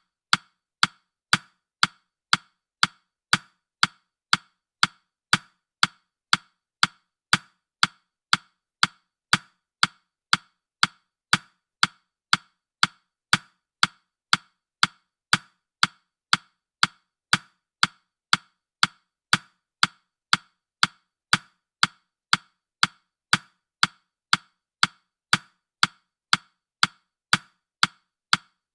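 Countdown timer's clock-tick sound effect: sharp, even ticks at about two a second, each with a short ring.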